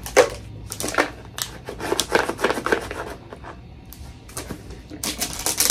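Clear plastic wrapping on a boxed item crinkling and rustling as it is handled, in irregular crackles that grow busier and louder near the end.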